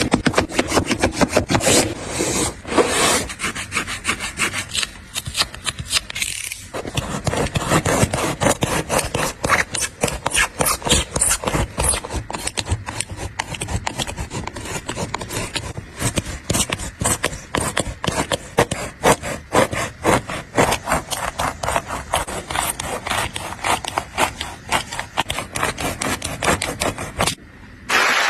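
Rapid back-and-forth rasping strokes of a blade sawing through a Nike Air Force 1 sneaker, continuing steadily and breaking off briefly about a second before the end.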